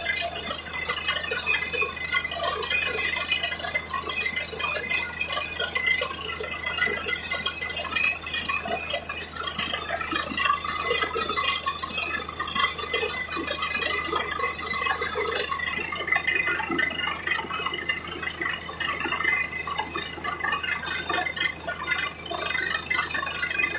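Truck-mounted borewell drilling rig running steadily while drilling, with a continuous metallic rattling from the drill string and muddy water and cuttings splashing out around the bore.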